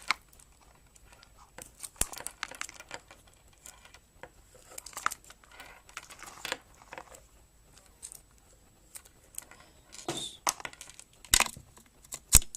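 Plastic packaging crinkling and clicking as Apple EarPods are worked out of their case, with scattered sharp clicks, the loudest near the end.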